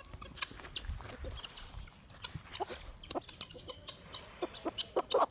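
Chickens clucking softly: scattered short calls, with a quicker run of clucks near the end.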